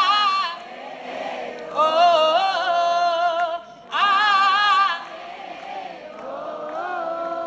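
A woman singing live into a microphone through the PA, in long held phrases with a wavering vibrato and sliding notes. There are four phrases with short quieter gaps between them.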